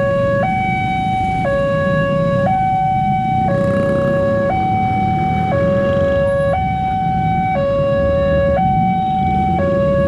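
Railway level-crossing warning alarm sounding a two-tone electronic signal, switching between a lower and a higher note about once a second, while the crossing barrier arm lifts. Road traffic and motorcycles run underneath.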